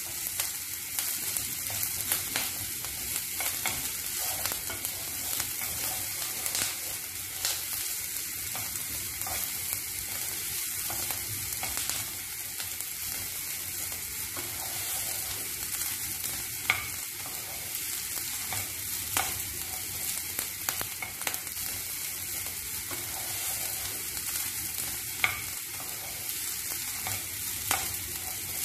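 Chopped onion and garlic sizzling in hot oil in a nonstick frying pan while a wooden spatula stirs them, scraping and tapping the pan, with an occasional sharper tap. This is the sauté of the aromatics, cooking the onion until translucent.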